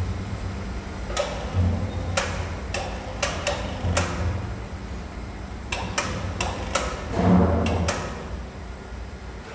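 Metallic clinks and knocks of tools and parts being handled, about a dozen irregular strikes with a few heavier thuds, the loudest about seven seconds in, over a steady low rumble.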